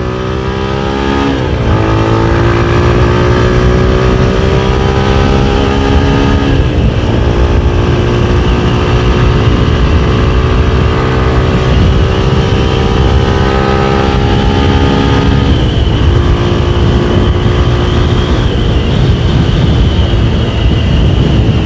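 Motorcycle engine under hard throttle at highway speed. Its pitch climbs steadily and drops back three times, at upshifts, about a second in, around six seconds and around fifteen seconds. Steady wind rush runs under it.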